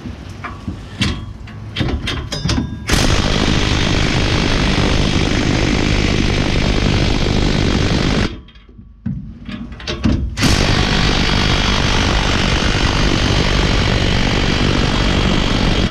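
An impact wrench hammering in two long runs of about five seconds each, with a short break between, tightening the nut on a leaking exhaust clamp. A few clinks of the tool and socket come first.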